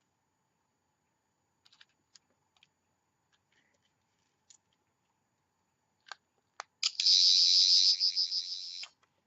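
Toy Thirteenth Doctor sonic screwdriver: a few faint plastic clicks from handling and pressing its button, then its electronic sound effect, a high pulsing buzz about two seconds long that cuts off suddenly.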